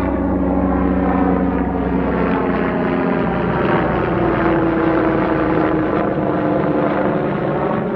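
Helicopter flying over low, a loud, steady rotor and engine drone made up of many even tones.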